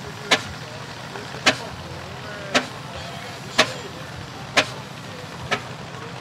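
1920 Franco Tosi Tipo H1 48-litre single-cylinder air-injection diesel engine running slowly: a sharp exhaust bang about once a second, six in all, over a low steady hum.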